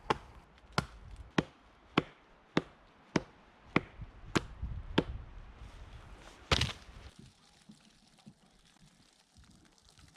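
Fiskars X5 hatchet chopping into a dead fallen log: about nine sharp strikes in an even rhythm, a little under two a second, over the first five seconds. A single louder knock follows about six and a half seconds in.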